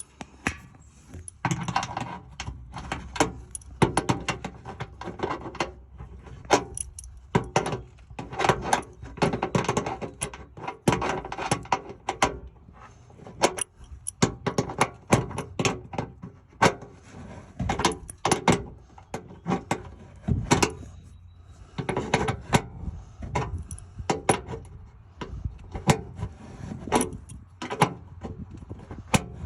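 Irregular metallic clicking and clinking of a hand tool and hardware as a fender washer and M6 nut are fitted onto a loose underbody-shield stud and worked on, the missing nut the suspected cause of a wind rattle at highway speed.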